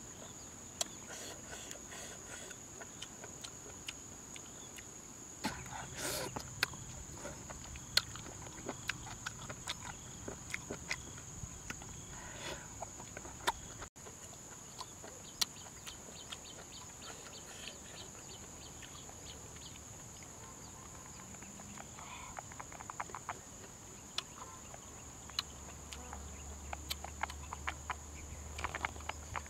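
Chopsticks clicking and tapping against a metal wok, then chewing and lip-smacking, over a steady high insect drone.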